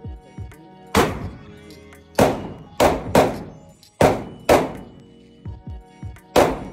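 Handgun shots echoing in an indoor shooting range: about seven loud, irregularly spaced shots, with faint music underneath.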